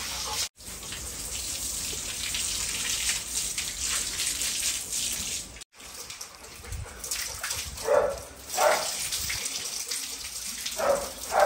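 Water running from a garden hose onto a concrete floor and over a wet dog being bathed, a steady splashing hiss that cuts out briefly twice. Two pairs of short vocal sounds come in the second half.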